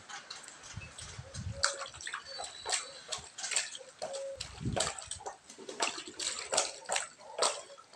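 Water splashing and slapping in a small plastic tub as a baby pats it with his hands: short, irregular splashes, several a second.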